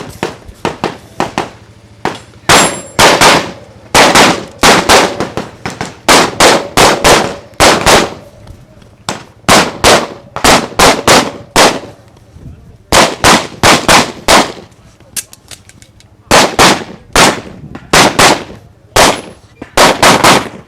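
Open-class .38 Super race pistol built on an STI 2011 frame, with a compensator on the barrel, fired in fast strings of shots: quick strings separated by short pauses, beginning about two and a half seconds in and running on almost to the end.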